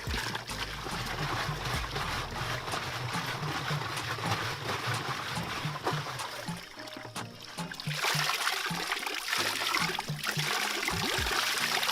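Water running and trickling, as in fetching water from a spring into a jerry can, with music that has a repeating bass line playing at the same time. The water sound drops away about seven seconds in and comes back louder a second later.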